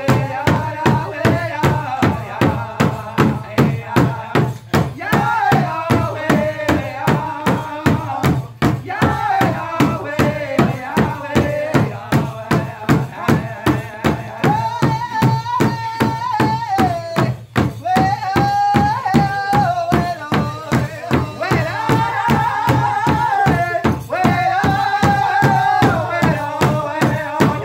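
A powwow drum group: several singers strike one large hide-headed powwow drum together in a steady beat, roughly two beats a second, while singing a chant in unison.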